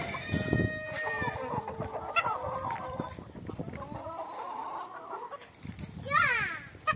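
A flock of hens and roosters clucking while they feed, with short calls throughout and one louder call falling in pitch near the end.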